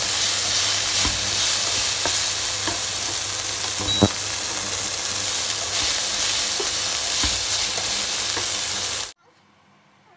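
Chicken pieces sizzling in a nonstick wok while a spatula stirs and scrapes them, with small clicks and one sharp knock about four seconds in. The sizzling cuts off suddenly near the end.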